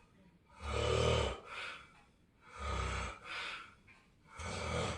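A sleeping person snoring: three low, rattling snores about two seconds apart, each followed by a softer, breathier sound.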